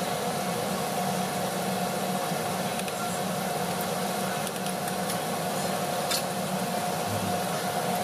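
A steady mechanical hum and hiss, with a few faint scrapes as a plastic spatula stirs chicken curry in a nonstick pan.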